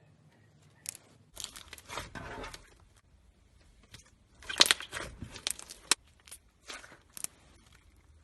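Slime being squeezed and pulled, giving crackly, crunchy clicks and pops in two bursts, the loudest about four and a half to six seconds in, with a few single pops after.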